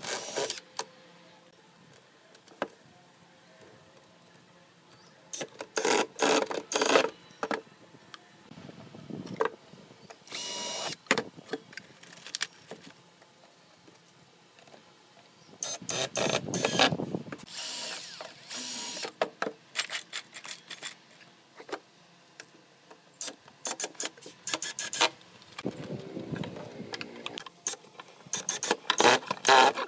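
Cordless drill and impact driver driving screws through brass hinges into pine boards, in short runs of a second or two with quiet pauses between.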